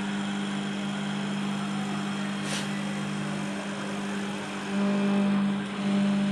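CNC router spindle running steadily with a constant hum while milling a pine board, growing louder near the end.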